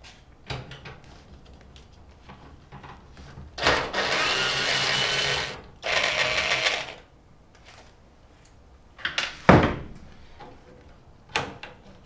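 Makita cordless drill-driver running in two bursts, about two seconds and then one second, backing out a fastener in the microwave's high-voltage section. A single sharp clunk follows about nine and a half seconds in, with a few lighter clicks after it.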